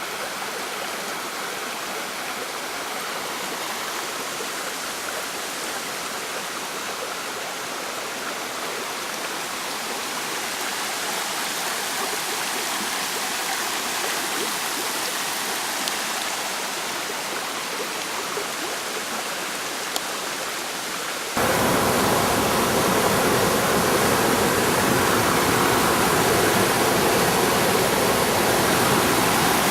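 Steady rush of running water, as of a mountain stream or falls. About two-thirds of the way through it jumps suddenly louder and deeper, then carries on steadily.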